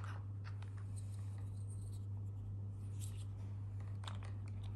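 Faint rustling and a few light clicks of short plastic heat shrink tubes being picked by hand out of a plastic compartment organizer, over a steady low hum.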